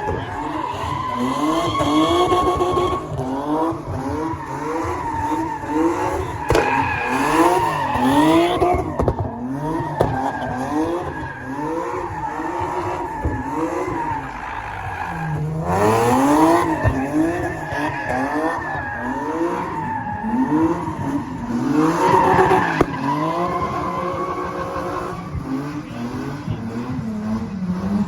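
Car engine revving up and down over and over, about once a second, with tyres squealing steadily as the car spins doughnuts in a burnout.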